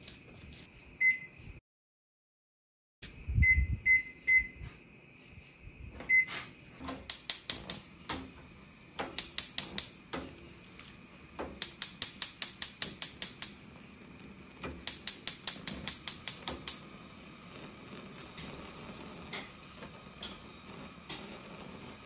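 A few short electronic beeps, then a Samsung gas range's spark igniters clicking rapidly, about six clicks a second, in four runs as the burners are lit. The lit burners then burn with a steady faint hiss.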